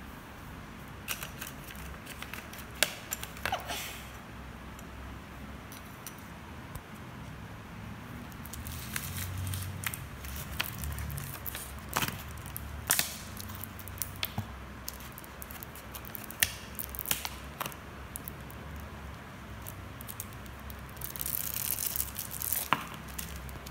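Clear plastic packaging of a modelling-clay tray being handled: scattered clicks and taps, with plastic crinkling busiest near the end.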